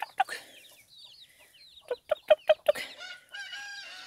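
A mother hen clucking in quick runs of short clucks, with her half-grown chicks giving high little peeps in between. A loud run of about five clucks comes around the middle, and near the end a long, steady, drawn-out call sets in.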